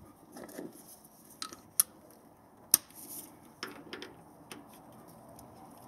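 Scattered sharp clicks and clinks of a socket and extension being handled and fitted onto the oil filter housing cap, about half a dozen, with the sharpest about halfway through.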